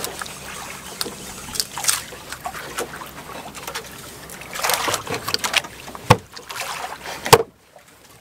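Kitchen knife cutting the head off a fish on a wooden cutting board: scraping, crunching strokes through flesh and bone, with scattered clicks and two sharp knocks of the blade on the board near the end.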